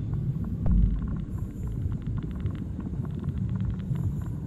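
Dark sound-design soundtrack: a dense low rumble scattered with faint crackling clicks, with a heavier low throb about a second in.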